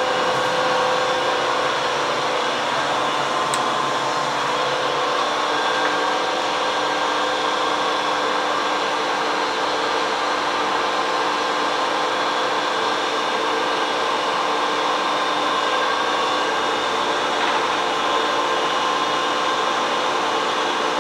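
Steady whirring hum of a lathe running, spinning a camshaft while its front center is being re-cut.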